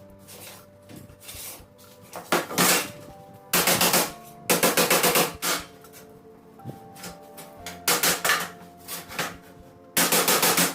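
Rapid hammer blows on metal in several quick runs of about seven strikes a second, each run lasting about a second, hammering a piece straight.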